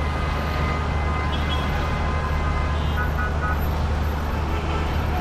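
Dense city traffic jam: a steady low rumble of idling and crawling vehicles, with short car horn toots a couple of times.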